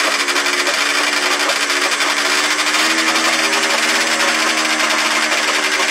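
A 1970s snowmobile's small two-stroke engine running steadily at a fast, buzzing idle, its pitch wavering slightly; the old engine has finally started.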